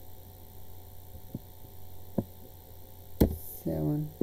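Steady electrical mains hum from the recording setup, broken by a few sharp computer-mouse clicks, the loudest about three seconds in.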